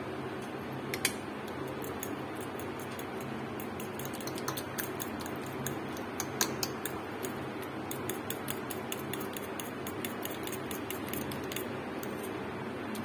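Metal fork beating two raw eggs in a ceramic bowl, its tines clicking against the bowl in a quick, uneven run of light ticks.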